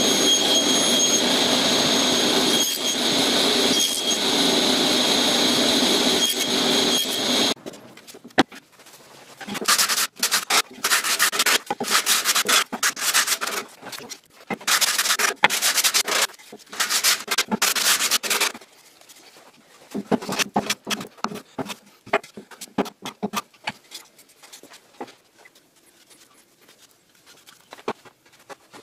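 A table saw runs with a steady whine during a cut through plywood, then stops abruptly about seven seconds in. Then come about ten seconds of repeated back-and-forth hand-sanding strokes on wood. After that, quieter scattered knocks and rubbing as wooden boards are handled.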